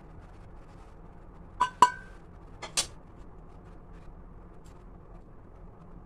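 Steel kitchen utensils clinking against a small steel bowl: two ringing metal clinks about a second and a half in, then two sharper ones just under a second later.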